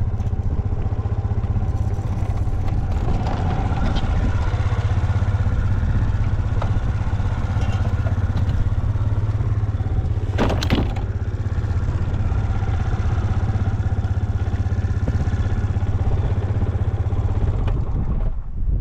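Suzuki Let's 4 scooter's 49 cc four-stroke single-cylinder engine running steadily at idle, with one brief knock about halfway through. The seller describes the engine as free of abnormal noise.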